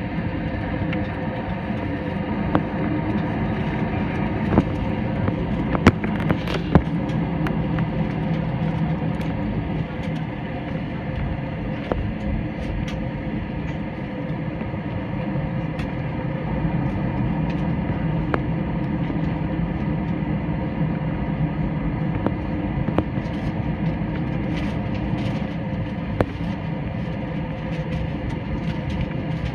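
Steady rumble of a jet airliner's engines and airflow heard inside the cabin, with a few faint clicks in the first several seconds.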